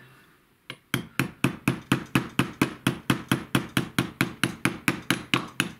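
Small ball-peen hammer tapping rapidly and evenly, metal on metal, about five light taps a second, driving the gas-tube pin into an AR-15 gas block.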